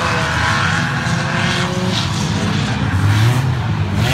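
A pack of enduro stock cars racing around the oval, many engines running together in a loud, steady din. Separate engine notes rise and fall as cars pass close by.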